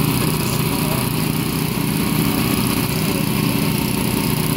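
Small engine running steadily at a constant speed: the power unit of hydraulic rescue tools (Jaws of Life) feeding the hoses to the spreader and cutter.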